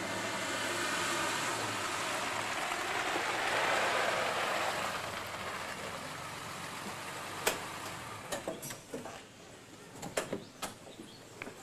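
A car drives in and stops, its engine running and swelling, then dying away about six seconds in. Sharp clicks and knocks of the car's door latch and door follow as it is opened.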